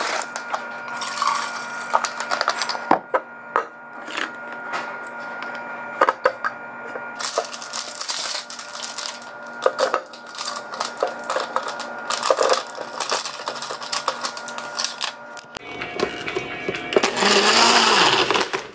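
Knocks and clatters of containers, lids and ice going into a NutriBullet blender cup on a tiled counter. Near the end the NutriBullet starts blending with a steady loud whir.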